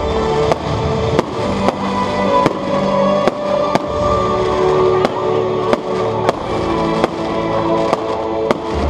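Aerial firework shells bursting: sharp bangs about once or twice a second, over loud music with held notes.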